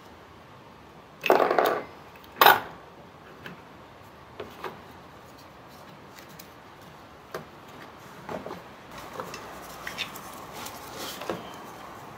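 Spider gears of a Ford 8.8 differential clinking against the carrier case as they are turned and worked out by hand. There is a rattling scrape about a second in, a sharp metal clank just after, then scattered light clicks.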